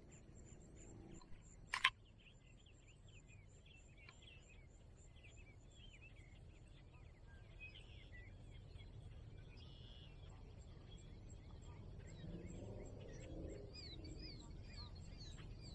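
Faint outdoor ambience with many birds calling, short high chirps throughout that grow busier near the end, and a single sharp click about two seconds in.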